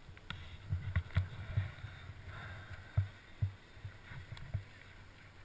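Handling noise from a body-mounted camera as a street luge rider settles onto his board: scattered low thumps and a few sharp knocks over a faint hiss.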